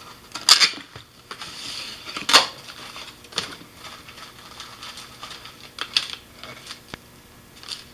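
Packaging being handled as a boxed fishing reel is unpacked: light rustling with several sharp clicks and taps, the loudest about half a second and two and a half seconds in.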